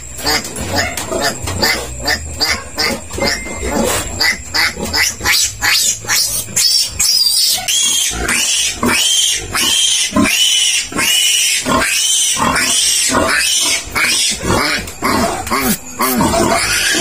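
Three-day-old piglet squealing over and over while held for an iron injection. The squeals come as short, rapid cries at first, then from about halfway as longer squeals that rise and fall, somewhat more than one a second.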